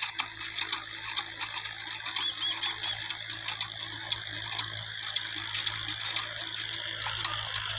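Cast-iron village hand pump being worked by its handle, its mechanism clanking and clicking in a quick, uneven rhythm, with water splashing from the spout.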